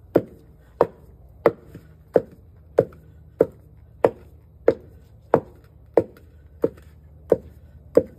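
A wooden pestle pounding food in a wooden mortar, in a steady rhythm of about three strokes every two seconds, each stroke a short knock.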